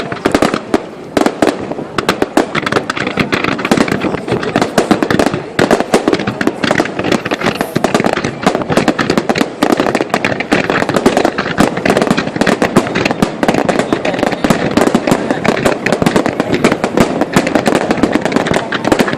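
Fireworks display going off in a dense, unbroken barrage of overlapping bangs and crackles.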